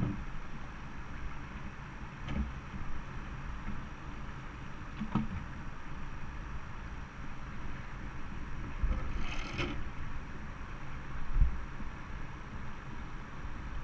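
River current rushing and lapping steadily around an inflatable boat and a wading man. Several low knocks of the boat and gear come through, the loudest near the end, and there is a brief squeak a little past the middle.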